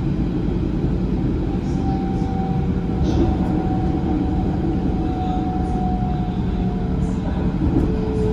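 Steady rumble of a passenger train running along the track, heard from inside the carriage, with a faint steady whine over it.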